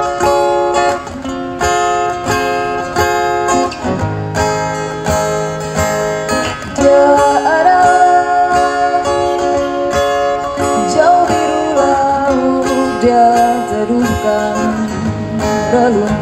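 Acoustic guitar strummed in steady chords, with a woman's voice singing that comes in about seven seconds in.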